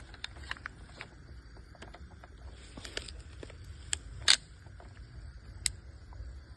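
Scattered small clicks and knocks from handling a homemade .22 LR M1911 pistol, with one much louder sharp click a little after four seconds in.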